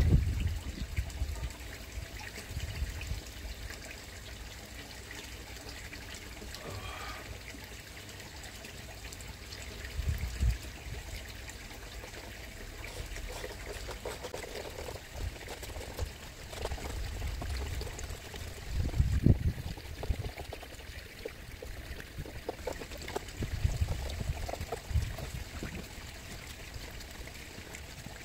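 Steady trickle of water circulating in a koi pond, with a few dull low thumps now and then.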